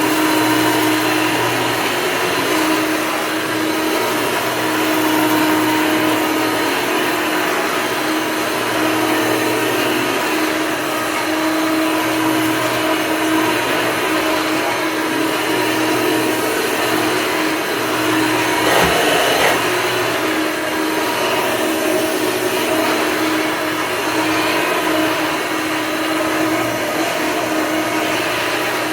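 Hoover Elite upright vacuum cleaner running steadily, its motor holding an even pitch with slight swells. There is a short knock about 19 seconds in.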